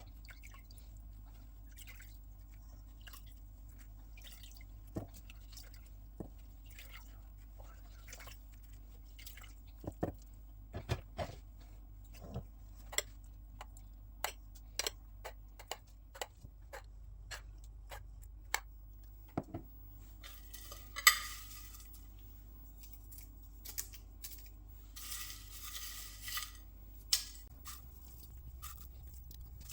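Kitchen clatter: scattered light clinks and knocks of dishes and utensils. Two short rushing, hissing noises come in the second half, the first about two-thirds of the way through.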